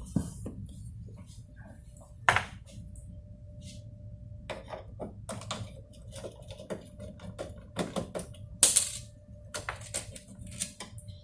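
Irregular clicks, taps and light clatter of small plastic and metal parts being handled and pulled loose while a PLC is taken apart, with a couple of louder knocks. A faint steady hum starts a couple of seconds in.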